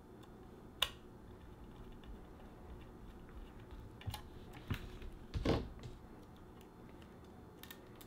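Scattered small clicks and taps of a metal laptop drive tray, SSD and screwdriver being handled. There is a sharp click about a second in and a heavier knock about five and a half seconds in.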